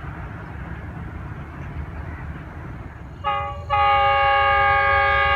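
Low rumble of a train, then a diesel locomotive's multi-tone air horn sounds a short blast about three seconds in, followed by a long, steady blast.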